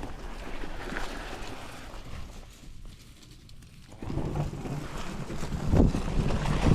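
Wind buffeting the microphone, a rough rumbling noise that drops away for a moment in the middle and then comes back stronger.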